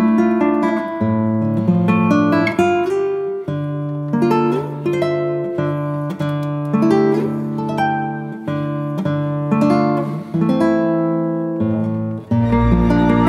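Background music played on plucked acoustic guitar, a run of picked notes that ring and fade. About twelve seconds in it turns into a fuller, sustained passage.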